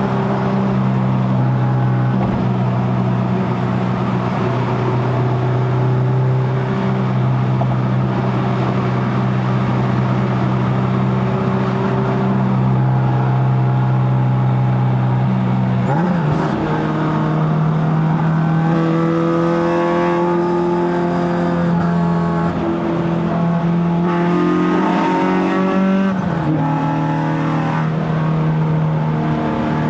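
Honda K24A inline-four with a straight-pipe stainless exhaust running at a steady cruise, a held drone that steps to a new pitch about halfway through and again near the end.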